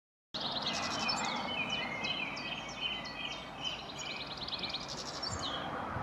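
European goldfinch singing: a fast, continuous twitter of high notes that stops shortly before the end, over steady background noise.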